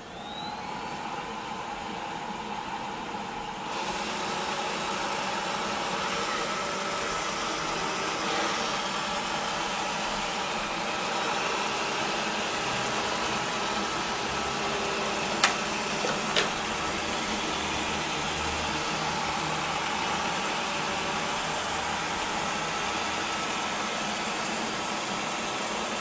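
Xiaomi Roborock S5 robot vacuum running as it drives itself back to its charging dock: a steady whir of its fan and motors with a hum, growing louder about four seconds in. Two sharp clicks come about a second apart midway.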